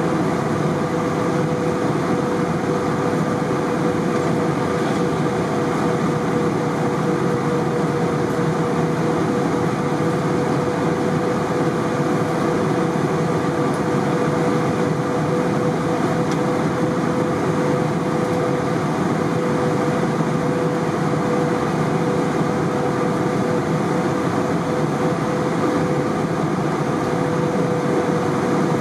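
Steady cabin noise of an Airbus A320 airliner in flight: the even rush of engines and airflow, with a constant hum throughout.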